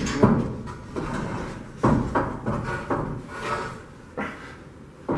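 Knocks and scrapes as a hollow decorative wall block is handled and set into mortar, about five sharp knocks at uneven intervals.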